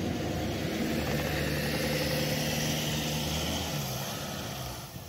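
Four-wheel-drive engines running steadily under load as a Ford Ranger pickup is pulled forward through deep snow on a tow strap, with a hiss of tyres churning the snow. The engine note drops a little near the end.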